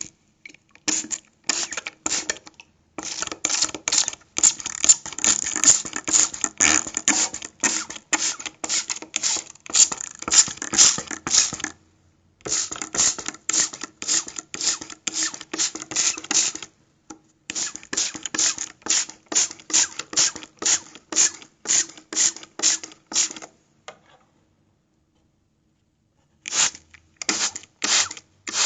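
Hand-held spray bottle spritzing in quick repeated squirts, about two a second, in runs broken by short pauses and one longer silence near the end.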